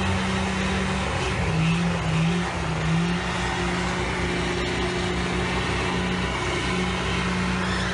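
Pickup truck engine revving hard and held at high revs, its pitch stepping up and down, while the truck spins donuts in the street.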